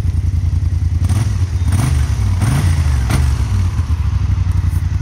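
Kymco AK550 maxi-scooter's 550 cc parallel-twin engine running at idle, heard close to the exhaust, with a brief small rise in revs about halfway through.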